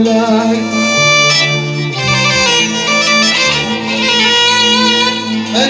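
Instrumental interlude between sung phrases of an Arabic mawwal: a sustained, ornamented melody line over held bass notes that shift pitch a few times.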